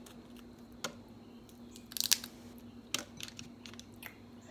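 Close-miked eating of lobster tail: scattered sharp clicks and small crunches, the loudest cluster about two seconds in.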